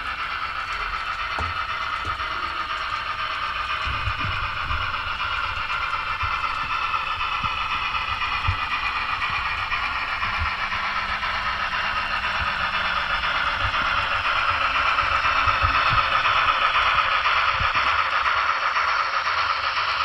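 N scale BLI USRA steam locomotive's Paragon 3 DCC sound decoder playing its steam running sounds through the model's small speaker as the locomotive runs, getting louder near the end as it nears the camera.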